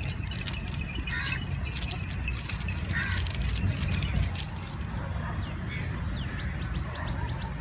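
Goats bleating briefly, twice in the first half, over a steady low rumble of wind on the microphone. Near the end a bird gives a fast run of high chirps.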